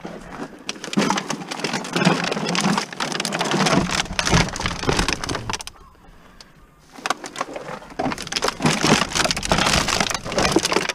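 Plastic bags full of empty plastic bottles crinkling and rattling as they are lifted and packed into a minivan's cargo area. There are two spells of handling, with a brief lull about six seconds in.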